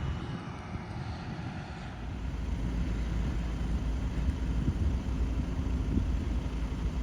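Tractor engine running steadily with a low rumble while pulling a seed drill; it grows louder about two seconds in.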